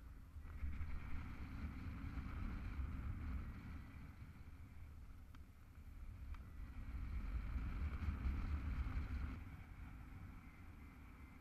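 Airflow buffeting the microphone of a paraglider's harness-mounted camera in flight: a low rumbling wind noise that swells twice, with a couple of faint clicks near the middle.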